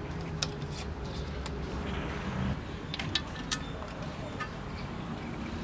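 Scattered sharp clicks and small knocks from hands handling a CRT TV main board and its wiring, over a low steady background rumble.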